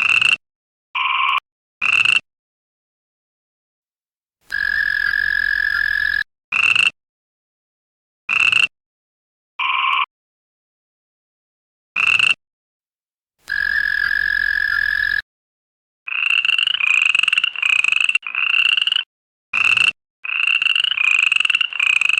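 Toad croaks, each call cut off by dead silence: several short single croaks, two longer steady calls about 4.5 and 13.5 seconds in, then a quick run of repeated croaks over the last six seconds.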